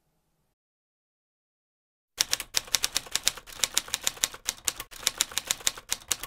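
Typewriter keys clacking in a rapid run, about seven strikes a second, a typing sound effect laid under on-screen text that appears letter by letter. It starts about two seconds in.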